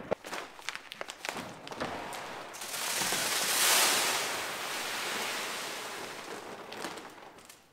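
Seed corn poured from a bag into a planter's plastic seed box: a rushing hiss that starts about two and a half seconds in, swells, then slowly tapers away. Before it, a run of light knocks and clicks from handling the bag and the box lid.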